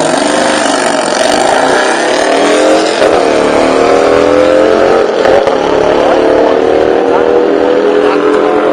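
Drag-racing car accelerating hard down the strip, its engine pitch climbing, dropping about three seconds in at a gear change, then climbing again.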